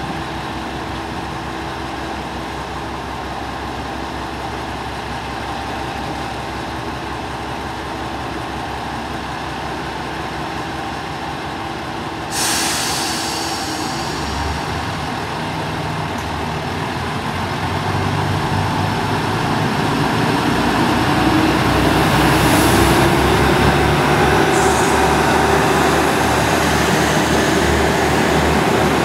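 JR Shikoku 2000-series diesel railcar idling with a steady hum; about twelve seconds in a sudden hiss of air comes from the brakes. Then its diesel engines throttle up with a low drone and a rising whine that grow louder as the train pulls away.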